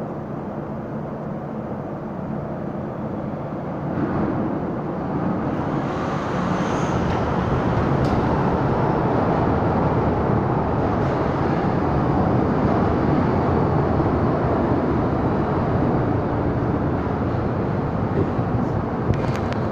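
MTR M-Train electric multiple unit running into the station behind the platform screen doors. Its steady rumble swells from about four seconds in and holds, with a few sharp clicks near the end.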